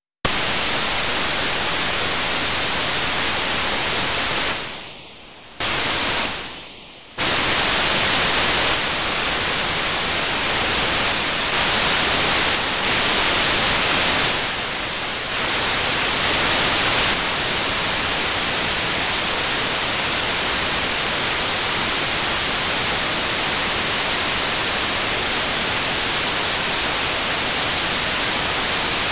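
Loud, steady hiss of white noise from an RTL-SDR receiver's FM demodulator tuned near 98.5 MHz, with no station audio coming through. Twice, about five and seven seconds in, the hiss fades away and then snaps back suddenly.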